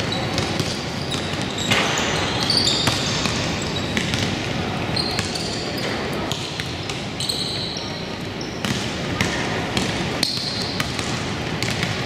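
Youth basketball game in a gym: a basketball bouncing on the court with frequent knocks, several short high sneaker squeaks, and indistinct chatter from players and spectators.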